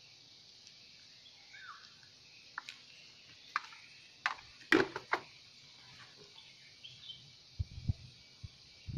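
An SMK Twister full-face helmet being handled and turned over. A handful of sharp clicks and knocks from its plastic shell and parts fall in the middle, the loudest about five seconds in, and dull thumps come near the end. Under it all is a steady hiss, with one faint bird chirp about two seconds in.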